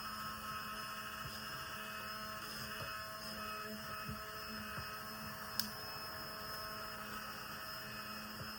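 Steady electrical hum holding several fixed tones, with one sharp click about five and a half seconds in.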